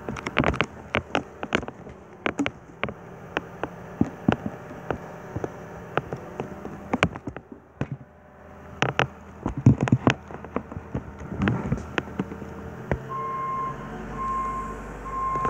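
JCB Teleskid compact track loader's diesel engine running while digging, heard through window glass, with many sharp knocks and clanks. Near the end a reversing alarm starts beeping at an even pace, about once a second.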